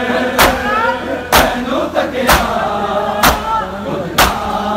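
A crowd of men doing matam, beating their chests in unison about once a second, five strikes in all, with voices chanting a nauha lament between the strikes.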